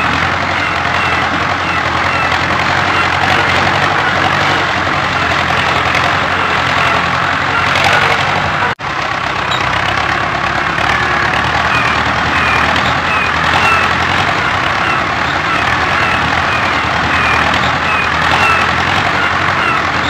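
Steady tractor engine running, with short high chirps repeating over it and a brief cut-out about nine seconds in.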